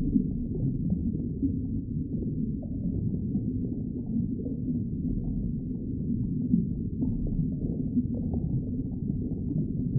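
A steady, low, muffled rumbling drone, all of it in the low range, with no clear notes or sharp sounds.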